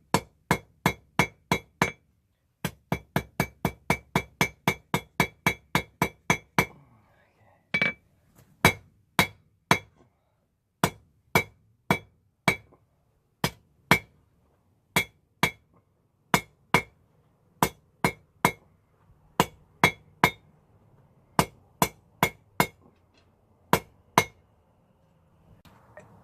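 Hand hammer striking hot rebar on an anvil while forging tongs, each blow with a bright ring. A fast run of about three blows a second, with a short break, gives way to slower, spaced blows that stop shortly before the end.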